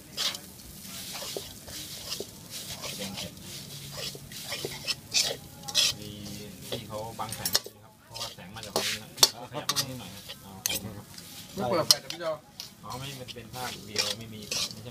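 A metal spatula scraping and clacking irregularly against a wok as finely chopped rat meat is stir-fried, with a light sizzle underneath. The meat is being dry-roasted without oil.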